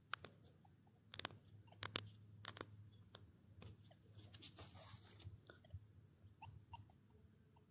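Fingers crumbling and sifting loose soil in a freshly dug hole: a scatter of soft clicks and crackles, with a brief rustle a little after halfway, over a faint steady high-pitched whine.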